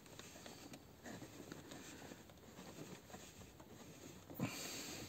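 Faint rustling and scratching of hands twisting bare car-stereo power wires together onto the ignition-switched feed in a dashboard wiring harness, with one short knock about four and a half seconds in.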